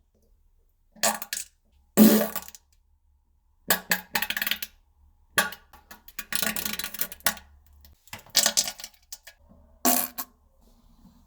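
A string of about eight short fart sounds, each cut off by complete silence. The longest lasts about a second, around the middle.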